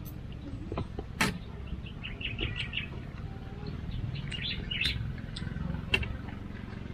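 Metal spoon and fork clinking on a plate while eating, with a sharp clink about a second in and another near the end. Birds chirp in short runs in between, over a steady low rumble.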